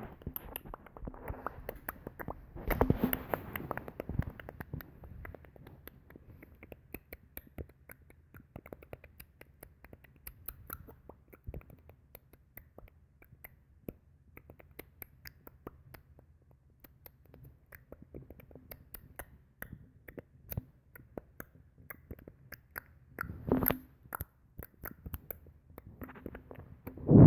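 A person making many small, irregular clicking noises, with louder, denser bursts of clicking about three seconds in and again near the end.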